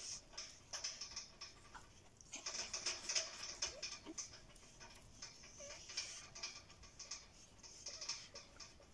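Faint scuffling and pattering of Tonya Fino puppies' paws on dirt and grit as they play and tussle, with a couple of short squeaks.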